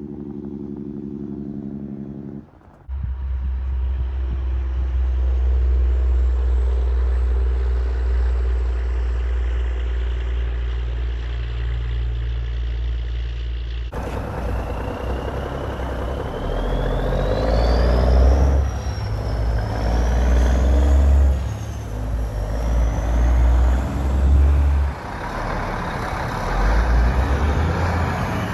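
Loud straight-piped diesel semi trucks running hard, in separate passes cut together. In the later part a tractor pulling a dump trailer moves off, its deep exhaust note dipping a few times, with a high whine rising above it.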